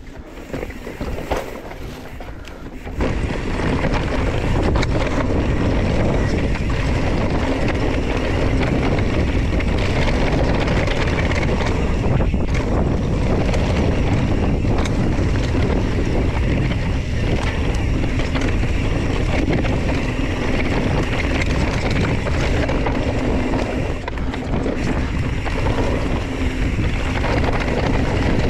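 Wind rushing over the camera microphone, mixed with the rattle and tyre noise of a Specialized Stumpjumper EVO mountain bike riding a dry dirt singletrack. It starts with scattered clicks and rattles, then about three seconds in jumps to a loud, steady rush as the bike picks up speed.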